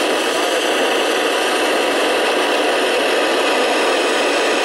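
FM radio receiver hiss from an amateur transceiver tuned to the ISS downlink on 145.800 MHz: steady static with no voice on the channel, meaning no signal is being received.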